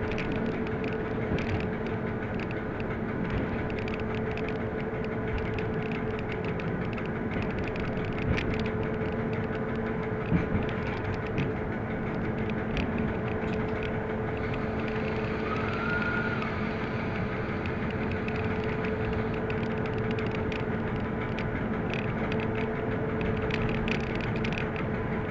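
Class 750 'brejlovec' diesel-electric locomotive under way, heard from its cab: the V12 diesel engine gives a steady drone with wheel-on-rail clicks running through it and a few sharper knocks. A faint hiss rises for a few seconds midway.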